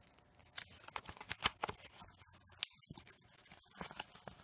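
Paper user manual and small packaging being handled: irregular rustling and light clicks and taps, starting about half a second in.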